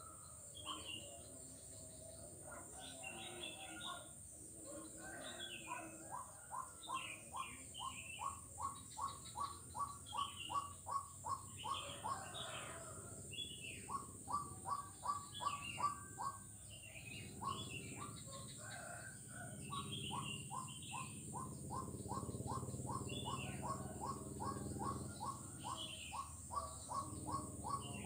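A frog calling in long runs of rapid, evenly spaced pulses, about four a second, in several bouts. Short high chirps come over it throughout, with a steady high-pitched insect hum behind.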